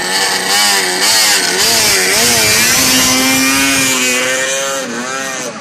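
Modded Polaris IQR 600 snowmobile's two-stroke engine revving up and down in bursts, then held at a steady high pitch for a couple of seconds before it drops away near the end.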